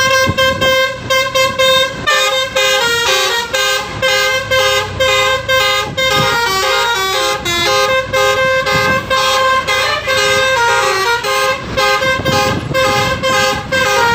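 Bus telolet horn playing a quick melody: several horn tones sound together and step from note to note every fraction of a second, with short breaks between phrases.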